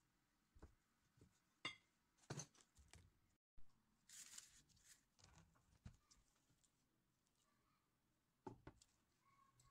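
Faint kitchen handling sounds: a few light clicks and knocks of a silicone spatula against a glass mixing bowl, then baking parchment paper rustling and crinkling as it is handled, with another small knock near the end.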